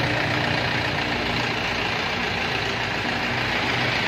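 Four-wheel rice-field tractor's diesel engine running steadily as the tractor drives slowly.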